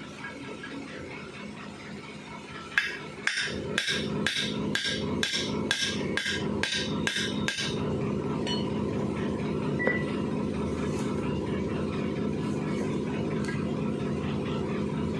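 A hammer striking about a dozen times, two or three blows a second, stopping about halfway through. Under the blows a steady mechanical hum starts and runs on.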